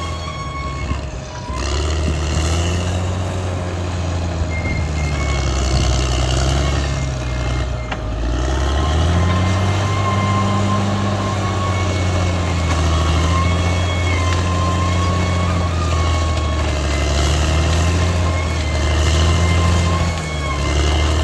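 Caterpillar D6R XL bulldozer's diesel engine working under load, its pitch dipping about a second in and again about eight seconds in, then climbing back. A thin, steady high whine runs over it.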